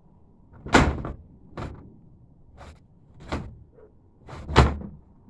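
A snowboard knocking and thudding on the hollow plastic lid of a wheelie bin as the rider hops on it: about five sharp knocks, the loudest about a second in and near the end.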